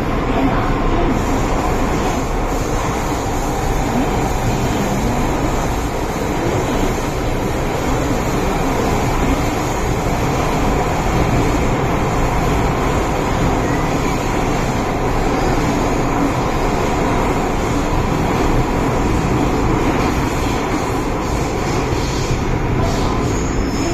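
Steady running noise of an MTR M-Train heard from inside the car as it travels through a tunnel: wheels on rail and the car's running gear making an even, continuous din.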